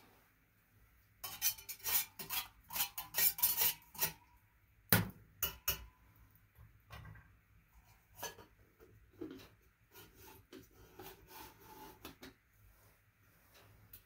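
Small titanium camping pot and its metal lid being handled: a quick run of sharp metallic clinks with brief ringing, then a couple of knocks, then softer scraping and light clinks.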